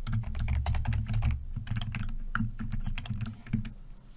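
Fast typing on a computer keyboard: a quick run of keystrokes that stops about three and a half seconds in.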